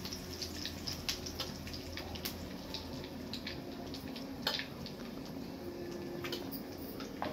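Cumin seeds sizzling and crackling in hot mustard oil in a steel karahi, a steady frying hiss dotted with many small pops.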